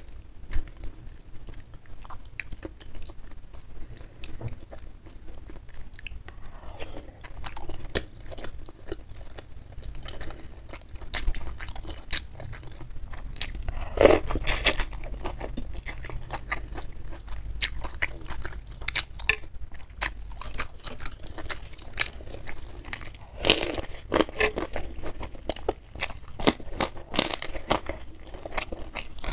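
Close-miked mukbang eating sounds: wet chewing and crunching of beef meatball soup with rice vermicelli and crackers. A loud slurp of noodles comes about halfway through.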